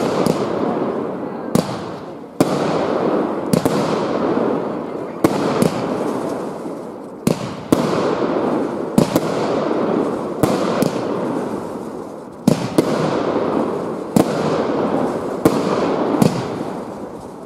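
Aerial fireworks going off in quick succession: sharp bangs every second or so over a continuous rushing noise that swells and dips.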